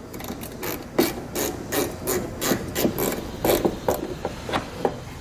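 Hand ratchet with a 7 mm socket clicking as it is worked back and forth to back out a small screw, an uneven run of sharp clicks about three a second.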